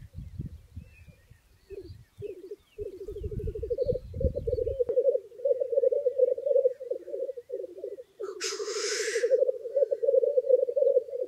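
Male black grouse at a lek rookooing: a continuous low, rapidly pulsing bubbling coo. One loud hissing 'tchu-wish' call comes about eight seconds in.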